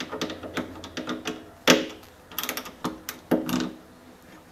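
T20 Torx driver backing a screw out of the BMW i8 trunk-lid pivot housing: a run of irregular metallic clicks and ticks, the louder ones ringing briefly.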